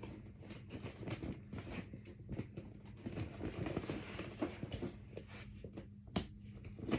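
Irregular rustling, light clicks and knocks of hands handling the plastic body and bag compartment of a Kenmore Whisper Tone canister vacuum, with a sharper click about six seconds in. A faint steady low hum runs underneath.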